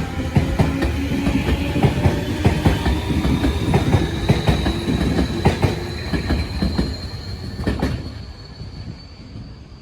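Tobu 60000 series electric train pulling out and gathering speed: a thin electric whine rises steadily in pitch over rumble and a dense run of wheel knocks on the rail joints. It fades over the last couple of seconds as the train draws away.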